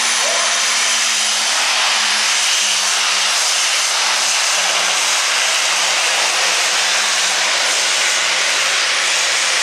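Heavy super stock pulling tractor's turbocharged diesel engine running flat out as it drags the weight sled down the track: a loud, steady roar with a thin high whine held above it.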